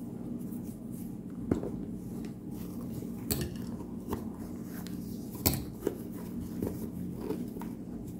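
Hands handling a leather shoe bound with shoelaces: light knocks and taps as it is moved about on the table, the sharpest about a second and a half in and about five and a half seconds in, over a steady low hum.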